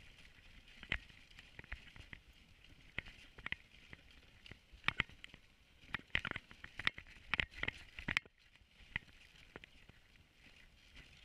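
A wooden dog sled running over a snowy trail behind a husky team: a low rumble from the runners with many irregular clicks and knocks from the sled, busiest in the middle.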